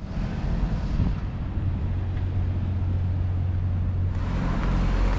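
Engine of a road vehicle running close by, a low steady hum whose pitch shifts upward about four seconds in.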